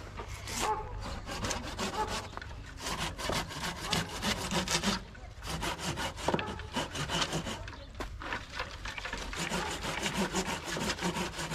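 Red-handled folding pruning saw cutting through a tree trunk in quick, even back-and-forth strokes, pausing briefly about five and again about eight seconds in.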